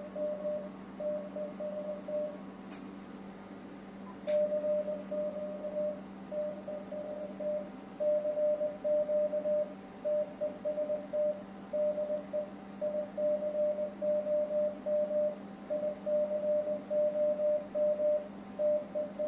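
Morse code sent as a mid-pitched tone keyed on and off in short and long elements: a transceiver's CW sidetone while the HF linear amplifier is keyed to transmit. It plays over a steady low hum. The sending pauses for about two seconds near two seconds in, and that gap is broken by two sharp clicks.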